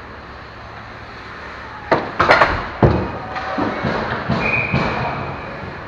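Ice hockey play in front of the net: a quick cluster of sharp knocks and clatter from sticks, puck and skates about two seconds in, then more scraping and smaller knocks as play goes on.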